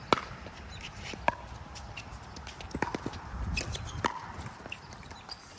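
A pickleball rally: sharp pops of paddles striking the plastic ball, roughly one every second or so, the loudest right at the start, with lighter ticks in between.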